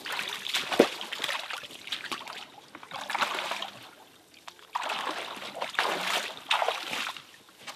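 Rubber boots wading through a shallow creek, splashing and sloshing in several bursts of steps with short pauses between.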